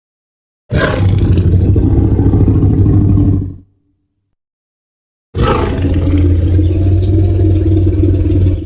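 Two Tyrannosaurus rex roars from the Jurassic Park films, a deep growling sound effect. The first begins about a second in and lasts about three seconds; the second begins about two seconds after the first ends and runs on to the end.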